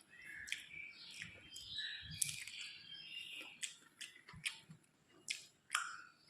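Close-miked eating sounds: a person chewing a soft, wet meal with repeated lip smacks and tongue clicks, a sharper click a couple of times.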